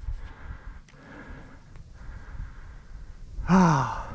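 Heavy breathing and rustling through cover, then about three and a half seconds in a loud, harsh burst that falls in pitch: a rooster pheasant flushing with a cackle.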